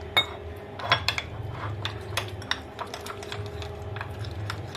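Steel spoon clinking and scraping against a glass bowl while stirring a thin flour-and-water batter, in irregular taps, the sharpest about a second in.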